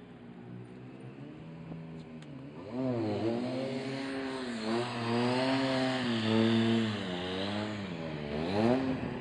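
Sport motorcycle engine during a stunt ride, ending in a wheelie. It runs steadily and fainter at first, then gets louder about three seconds in, its note rising and falling over and over as the rider works the throttle.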